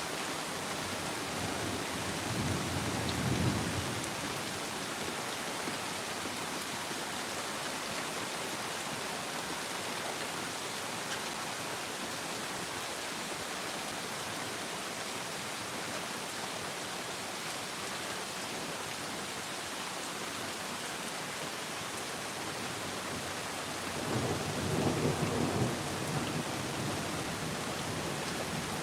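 Steady heavy rain, with two low rumbles of thunder, one a few seconds in and a longer one near the end.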